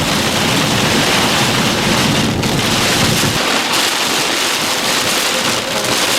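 Heavy rain and strong wind from a supercell thunderstorm, a loud steady rushing hiss. A low rumble of wind under it drops away about three and a half seconds in.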